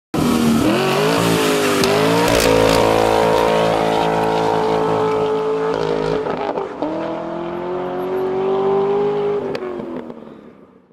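Car engine accelerating hard: its pitch climbs, holds high, dips briefly about six and a half seconds in, climbs again, then fades away near the end.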